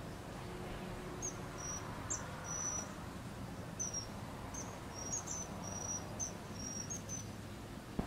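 Short, high-pitched chirps, about a dozen at uneven intervals, over a steady low background rumble.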